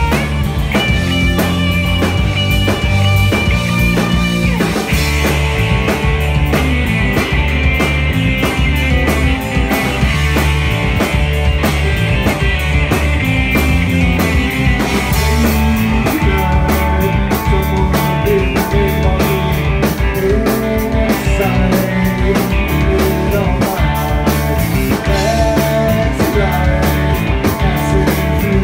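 Live rock band playing loud and steady: electric guitar over bass guitar and a drum kit.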